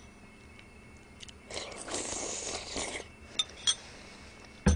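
Eating sounds from a bowl of noodle soup: a slurp lasting about a second and a half, light clinks of chopsticks on tableware before and after it, and a sharp knock with a dull thud near the end.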